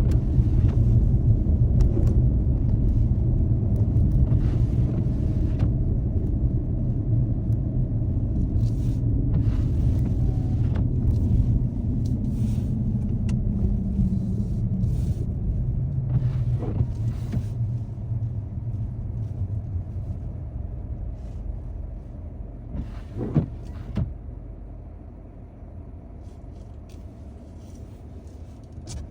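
Car driving, heard from a dashcam: a steady low rumble of engine and road noise that grows quieter through the second half, with a few short clicks near the end.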